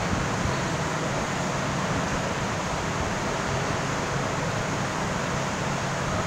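Steady rushing background noise with a low hum underneath, even throughout, with no distinct clicks or strokes standing out.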